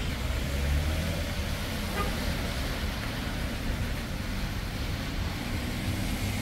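Road traffic on a wet street: a steady low engine rumble under a continuous hiss of tyres on the road.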